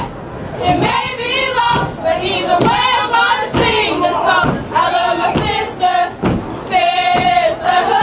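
A group of voices chanting and singing together in phrases, as in a step-show chant, with sharp hits between the phrases.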